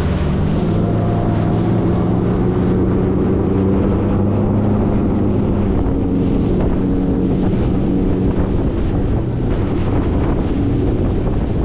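Fishing boat's outboard motor running steadily at speed as the boat crosses choppy water, with wind buffeting the microphone and water rushing past the hull.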